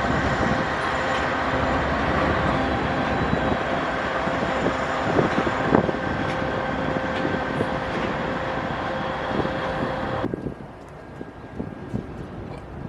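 A train passing close by: rolling wheel-and-rail noise with a steady whine and a few sharp clicks, stopping abruptly about ten seconds in.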